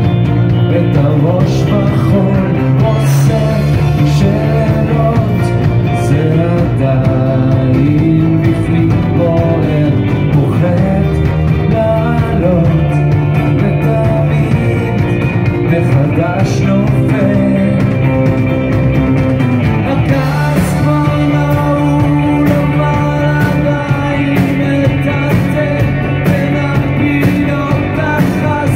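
Live rock band playing: a male lead singer with electric guitar and drum kit.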